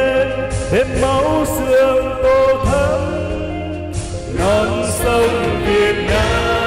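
A Vietnamese patriotic song performed live over a loud backing track, with long held sung notes between the lyric lines.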